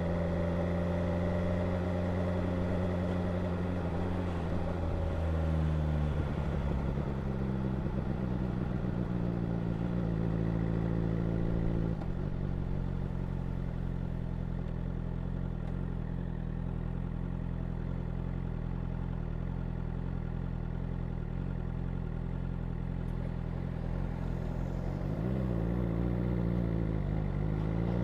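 BMW S1000R motorcycle's inline-four engine running, the exhaust heard up close. It holds steady revs, drops in pitch about five seconds in, then runs steadily at low revs through the middle. Near the end the revs rise and fall again.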